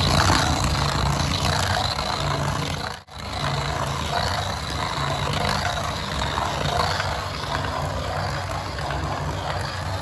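Toy remote-control car driving, its battery-powered motor and gears whirring while the bare plastic rear wheels, stripped of their rubber tyres, grind against the hard floor with a rough, engine-like sound. The sound cuts out briefly about three seconds in.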